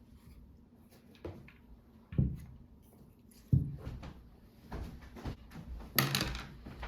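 Handling noise: a series of sharp knocks and clunks as hard objects are picked up and set down, the loudest a little after two seconds, at about three and a half, and at about six seconds.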